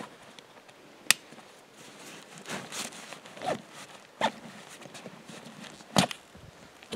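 Backpack compression-strap buckles clicking shut twice, about five seconds apart, with nylon webbing and pack fabric scraping and rustling between the clicks as the straps are pulled over a meat-loaded pack.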